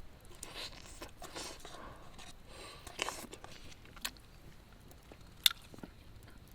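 Wood fire crackling, with irregular small snaps and pops and one sharp, loud pop about five and a half seconds in.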